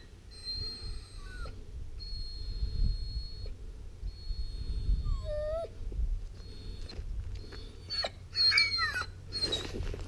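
Puppy whining while held back on a leash, eager to get at a bite tug: long high-pitched whines and several short whimpers that slide up and down in pitch.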